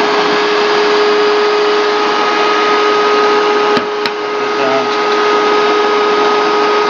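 A vacuum cleaner running steadily with a constant whine, drawing air through the air inlet of a wood gasifier to get the char bed burning at start-up. Two short sharp clicks just under four seconds in.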